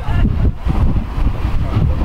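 Wind buffeting the microphone as an uneven low rumble, with people talking faintly nearby.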